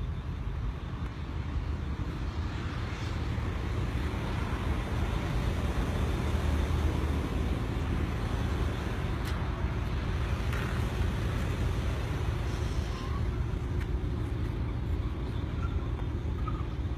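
Road traffic: a steady low rumble of vehicle noise that swells a little around the middle.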